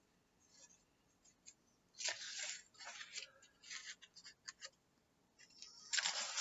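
Paper rustling: hands handling the pages of a hardcover picture book, a run of soft scrapes and brushes starting about two seconds in, with a louder rustle near the end.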